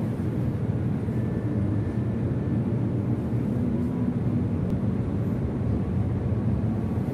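Steady low rumble of room noise in a large mosque hall with ceiling fans running, even throughout with no clear single event.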